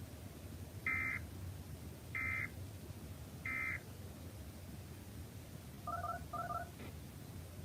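Emergency Alert System end-of-message data signal: three short bursts of warbling digital tones, each about a third of a second long and spaced about a second apart, over a faint hum. About two seconds after the last burst come two quick double beeps.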